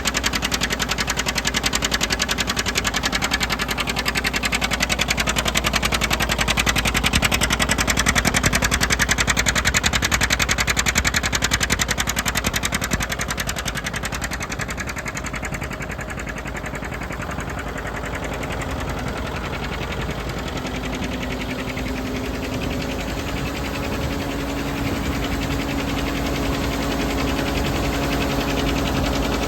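John Deere 720's two-cylinder diesel engine running steadily while driving a Gehl feed grinder grinding chicken feed. The level dips about halfway through and then slowly climbs again, with a steady hum coming in over the last third and rising slightly in pitch.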